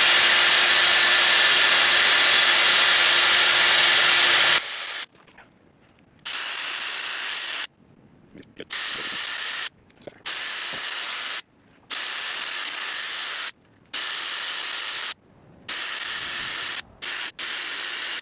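Cordless drill spinning a brass wire wheel brush to scrub rust and grime off a motorcycle brake caliper. One long run with a steady whine for about four and a half seconds, then a string of shorter, quieter bursts of about a second each, stopping and starting.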